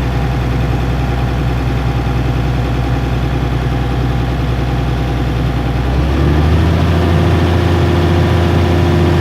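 Heavy equipment's engine running steadily, then speeding up and getting a little louder about six seconds in.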